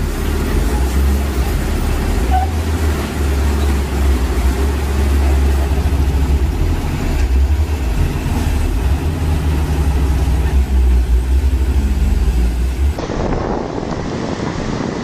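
Excavator diesel engines running with a steady, heavy low rumble. About 13 s in the sound cuts to a steady rushing noise of floodwater and wind.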